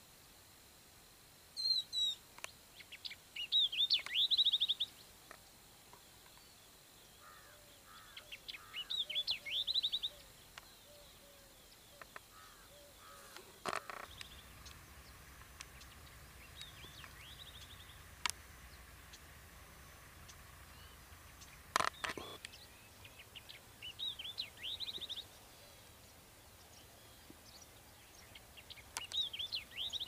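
Wild birds calling in bursts: high chirps and quick trills, with some lower, softer calls between. Two sharp clicks come about halfway and again later, and a low steady hum sets in about halfway through.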